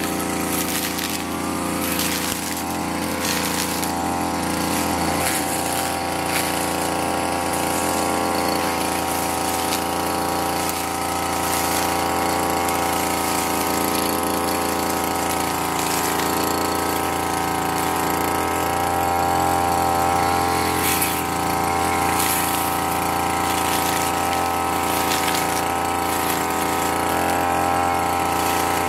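RYU petrol brush cutter's small engine running steadily at a constant speed, with short crackles now and then over the engine note.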